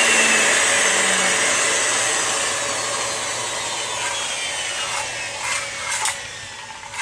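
Makita 5007NB 7 1/4 inch circular saw running, its whine slowly falling in pitch as the level eases off, with a few short knocks near the end.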